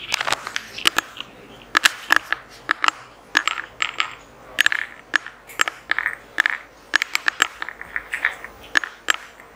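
Rapid, irregular clinking and clattering of small hard objects, with many sharp clicks, a few each second, several of them with a brief ring.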